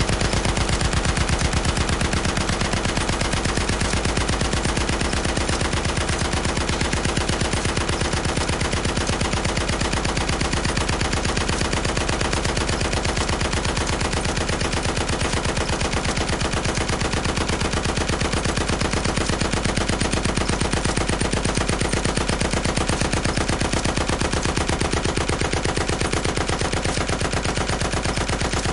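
Heavy machine gun firing one long unbroken burst of rapid, evenly spaced shots.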